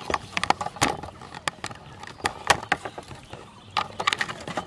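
Hands digging into soft, wet pond mud, making an irregular run of sharp wet smacks and squelches, several a second.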